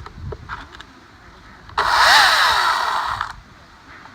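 Husqvarna T36Li XP battery top-handle chainsaw run once, briefly: the motor whirs up to speed and winds back down after about a second and a half.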